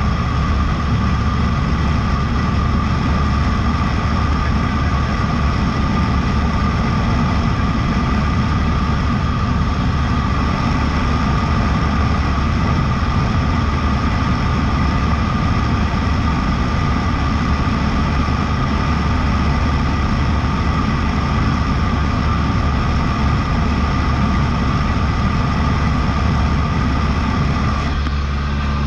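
Cessna 152's four-cylinder air-cooled Lycoming engine and propeller droning steadily in cruise flight, a loud, even note with constant tones. The engine note changes slightly near the end.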